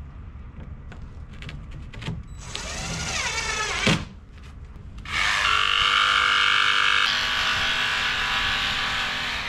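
Cordless drill driving a screw into a strip plank on the hull: a rising whine of about a second and a half that ends with a click. About a second later a louder steady sound with a held pitch starts and runs on, changing once partway through.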